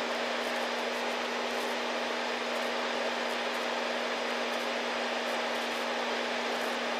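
Beechcraft V-tail Bonanza's flat-six piston engine and propeller running steadily in cruise, heard inside the cockpit: an even rushing hiss with one steady low hum under it.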